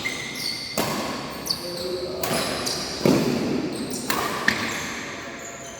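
Badminton rally in a large sports hall: about six sharp racket strikes on the shuttlecock at uneven intervals, the loudest about three seconds in, each echoing off the hall.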